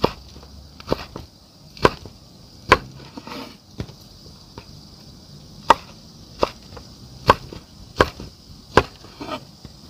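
A steel cleaver chopping long green chili peppers on a wooden chopping board: sharp knocks of the blade striking the wood, about one a second, with a pause of about three seconds near the middle.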